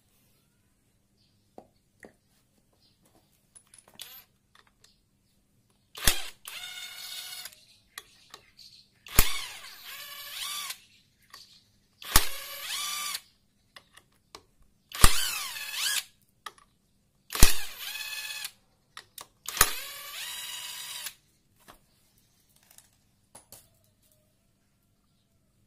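Cordless electric driver unscrewing the clutch pressure-plate bolts of a motorcycle engine. It runs in six short spells about three seconds apart, each starting with a sharp click and then a whine that wavers in pitch. Faint clicks of handling sit between the spells.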